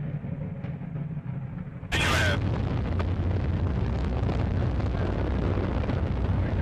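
Proton-M rocket climbing under its first-stage engines: a deep, steady rumble. It jumps sharply louder about two seconds in with a short crackle, then carries on as a loud, steady roar.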